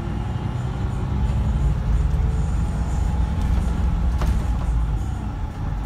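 Scania K124 coach's 12-litre straight-six diesel engine running, a steady low drone heard from inside the passenger cabin. A brief click sounds about four seconds in.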